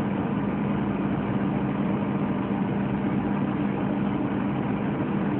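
A steady low hum under a constant hiss, with no breaks or changes.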